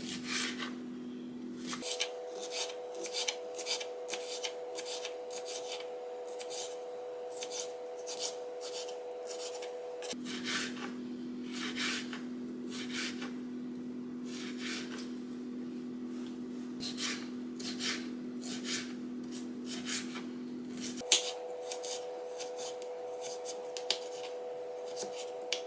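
A knife slicing bell peppers and a carrot on a cutting board: many quick, irregular cuts, a few a second, over a steady low hum.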